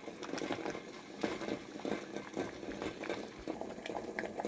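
Water at a rolling boil in a stainless steel pot with eggs in it, bubbling and crackling steadily.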